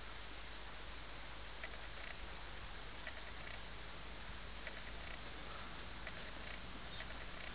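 A bird giving a short, high call that slides downward, repeated about every two seconds, over a steady faint hiss.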